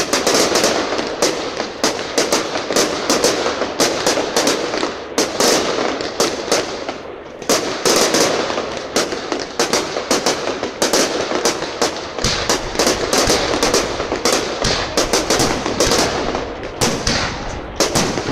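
Aerial fireworks display: a dense, unbroken run of shell bursts, sharp bangs several a second mixed with crackling.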